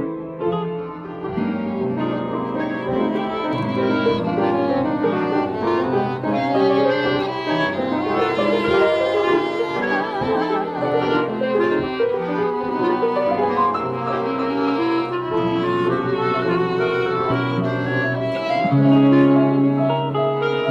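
Instrumental music from a small chamber ensemble of piano, violin, clarinet and electric guitar, playing continuously with sustained melody notes over piano chords. The parts were recorded separately and mixed together.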